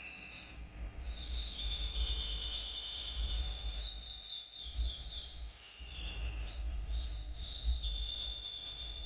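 Small songbirds singing: repeated quick trilled phrases and several long, even trills, over a steady low rumble.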